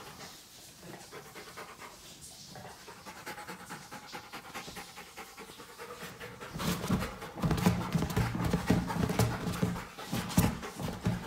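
Rottweiler puppy panting rapidly while working on a rubber exercise ball. The panting is soft at first and grows louder and closer about six and a half seconds in.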